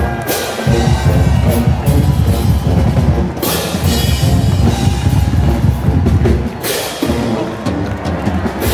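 Pep band playing brass and drums with a driving beat.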